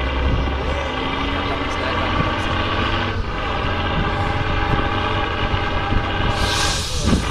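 Off-road trial truck's engine running hard under load as the truck climbs a steep dirt bank, a steady drone, with a brief hiss near the end.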